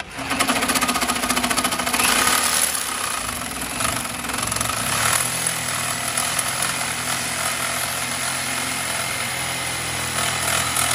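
Reciprocating saw with a metal-cutting blade sawing through a steel truck front spindle, running steadily with a rapid chattering stroke, loudest for the first couple of seconds. The factory spindle is being cut down so an aftermarket brake bracket can bolt on.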